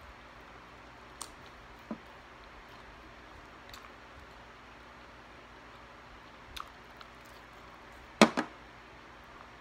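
Small plastic sauce cup being handled, giving a few faint clicks, then a sharp double knock about eight seconds in as it is set down on the table, over a low steady hiss.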